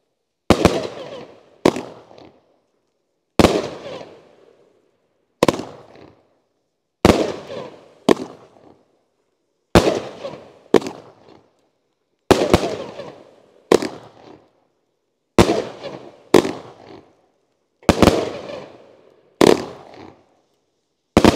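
Class B 25-shot mixed-colours-with-strobes firework cake firing: a sharp bang about every second, each trailing off over about a second.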